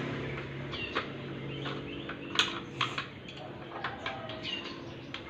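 Steel wrench clicking and tapping against the motorcycle engine's bolts as they are worked loose, a handful of short sharp clicks over a steady low hum.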